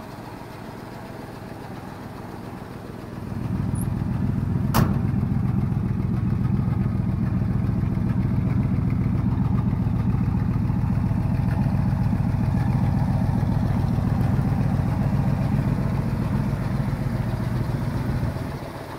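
1970 Ford F-250 pickup's engine idling steadily. Its rumble gets much louder about three seconds in and drops back near the end, with one sharp click about five seconds in.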